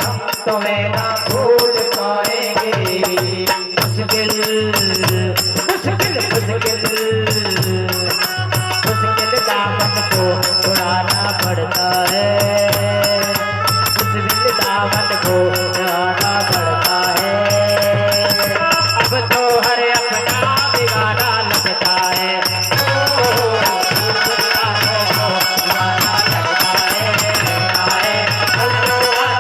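Instrumental interlude of a devotional song: a wandering melody over a steady low tone and a continuous rattling percussion beat.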